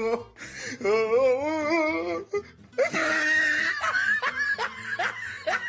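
A long wavering vocal sound, then a run of short, repeated laughing bursts.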